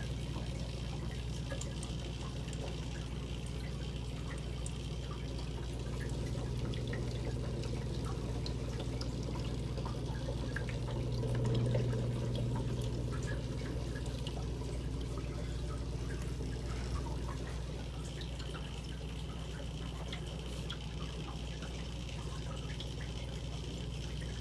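Aquarium water bubbling and trickling from an air-driven bubbler, with faint scattered ticks of bubbles breaking at the surface over a steady low equipment hum.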